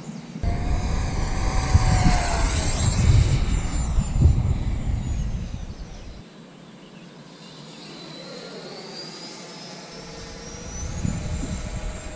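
Whine of an E-Flite F-16 Viper model jet's 80mm electric ducted fan on fly-bys: a loud pass falling in pitch as it goes by in the first half, with a low rumble under it, then the whine rising in pitch again as the jet comes back near the end.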